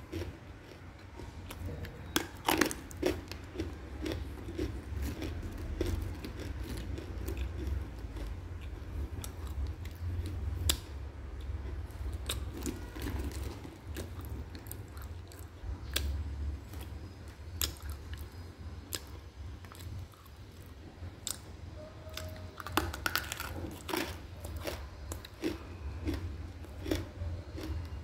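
A person chewing a chunk of edible clay close to the microphone, with irregular sharp crunches and softer chewing in between.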